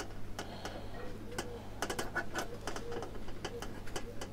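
Light irregular clicks and ticks of a wire cooking rack being handled as bacon rashers are hung over its bars, over a steady low hum. A faint, short low note keeps repeating in the background.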